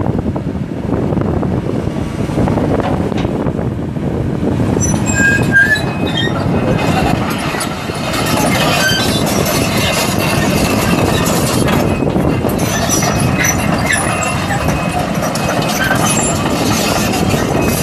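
2006 Link-Belt 240L excavator travelling on steel triple-grouser tracks, its Isuzu six-cylinder turbo diesel running under load. From about five seconds in, the tracks add scattered clanks and high squeaks.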